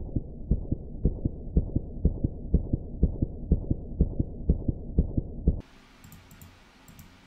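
Heartbeat sound effect: a fast, muffled double thump, about two beats a second, cutting off suddenly about five and a half seconds in.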